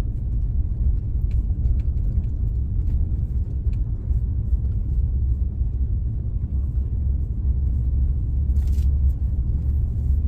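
A steady low rumble with a few faint clicks and a short hiss about nine seconds in.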